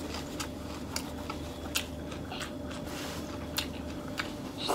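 Close-miked chewing of a mouthful of grilled beef rolled in lá lốt leaves and wrapped in lettuce and herbs, with the mouth closed: scattered soft, wet clicks and crunches. A short rustle comes near the end.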